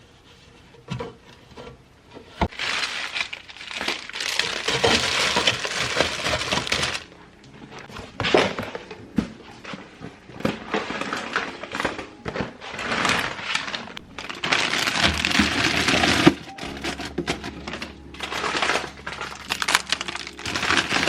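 Plastic grocery packaging crinkling and rustling in repeated bursts of a second or several, with a few sharp clicks and knocks.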